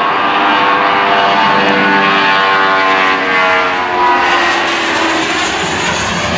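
Jet engines of a twin-engine Airbus A320-family airliner at takeoff power during its takeoff roll. The engines' whine slides steadily down in pitch over a loud rushing roar as the aircraft passes close by.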